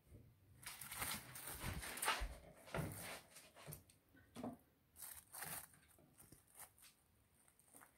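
Handling noises: irregular rustling and light knocks as a cling-film-covered bowl is moved about and set down on a gas stove top. They are busiest in the first few seconds, then a few separate sharp knocks.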